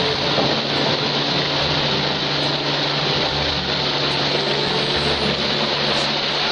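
Helicopter flying overhead: a steady rush of rotor and turbine noise with a low, uneven rumble underneath.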